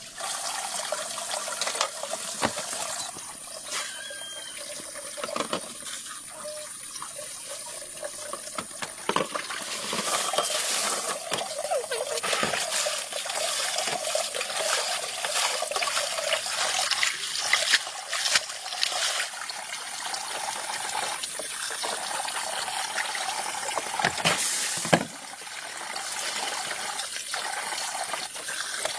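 Water trickling and splashing, with many small clicks and knocks of handling.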